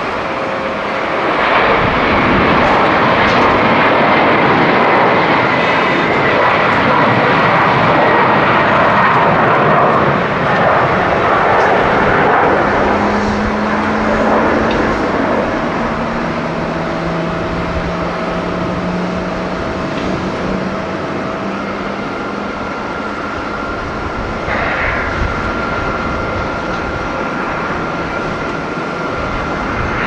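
Jet engines of a Boeing 777 airliner at takeoff thrust during its takeoff roll and climb-out: a loud roar that swells a second or two in, holds for about ten seconds, then slowly fades as the jet climbs away.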